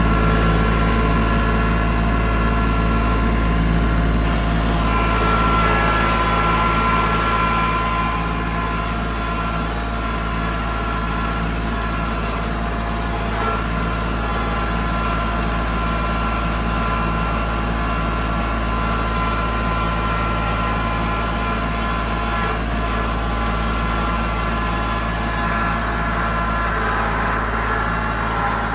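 A vehicle engine running steadily at an even pace, a constant hum that is a little louder for the first several seconds.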